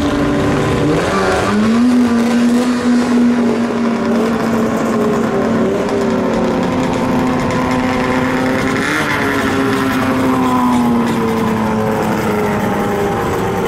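Arctic Cat Firecat F7 snowmobile's two-stroke engine at full throttle on a dry-land drag run. Its note dips and then climbs as it launches in the first two seconds, holds a steady high pitch, rises a little about nine seconds in, then slowly falls away.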